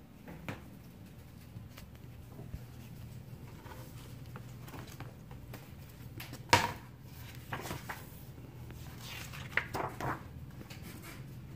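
Picture book being handled on a wooden table: the cover opened and pages turned, with one sharp knock about six and a half seconds in and a few softer rustles and taps, over a faint steady low hum.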